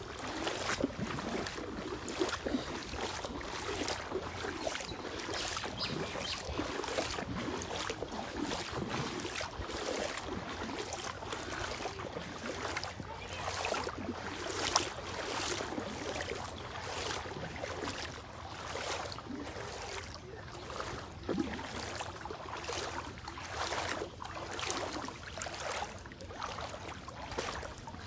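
Outdoor wind-and-water ambience over floodwater: a steady wash of noise with frequent short crackles throughout.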